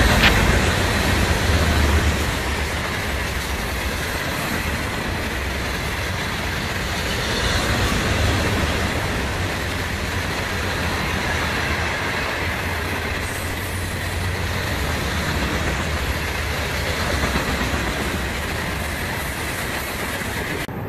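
Loaded aggregate hopper cars of a freight train rolling past close by: a steady rumble of steel wheels on the rails, a little louder in the first couple of seconds.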